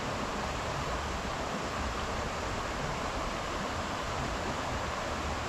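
Steady rushing noise of flowing creek water.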